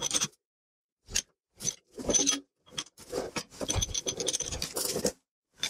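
Seized brake caliper piston being twisted out with a socket, hex key and extension bar: a series of short metal scrapes and creaks as the bar is worked, the longest stretch about three seconds in. The piston is stuck fast and moves only slowly under force.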